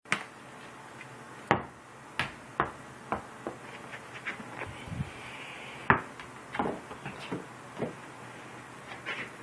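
A cat batting and chasing a ball: about a dozen irregular knocks and thumps as the ball is struck and bounces, with the cat's paws landing, the loudest about a second and a half in and about six seconds in.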